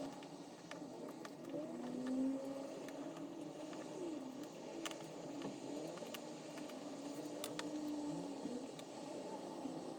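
Small scattered clicks and taps of a screwdriver working on the phone's charging-port board and loudspeaker module, over a louder low tone that wavers up and down in pitch throughout.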